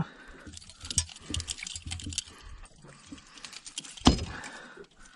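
Small metallic clicks and jingles as fishing pliers work a lure's treble hooks loose from a peacock bass's mouth, with one loud thump about four seconds in.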